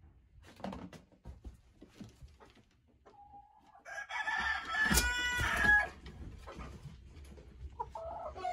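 Icelandic rooster crowing once, about four seconds in, one long call of nearly two seconds. A few soft knocks come before it, and a hen gives a short cluck near the end.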